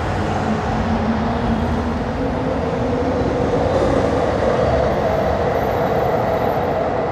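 Eerie, steady rumbling drone with long held, slightly wavering tones over a deep noisy roar, of the kind circulated as the mysterious 'strange sounds in the sky'.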